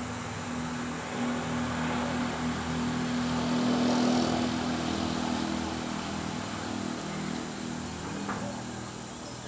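Low engine hum of a motor vehicle, growing louder to a peak about four seconds in and then fading, with insects buzzing.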